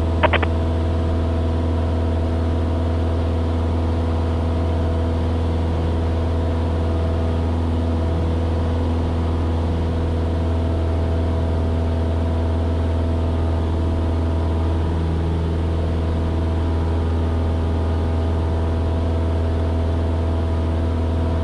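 Cessna 172S's four-cylinder Lycoming IO-360 engine and propeller running at takeoff power through the takeoff roll and climb-out, a steady deep drone that does not change.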